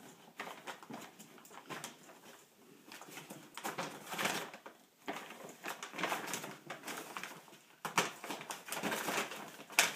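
Brown paper bag crinkling and rustling in irregular bursts as a small dog paws and noses at it and a kitten scuffles inside.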